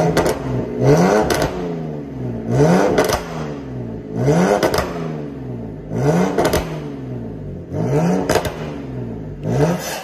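BMW E60 525i's straight-six engine blipped repeatedly through an aftermarket A Performance cat-back exhaust with its exhaust valve open: seven quick revs about a second and a half apart, each rising then falling in pitch.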